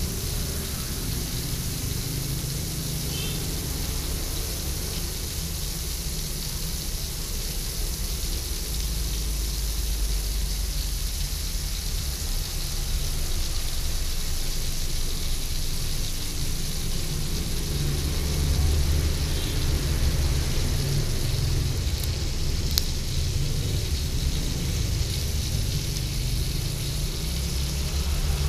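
Gas burner under a large steel wok running steadily, a low rushing rumble with a thin hiss over it from fat heating in the pan. A couple of light clicks come a little before the end.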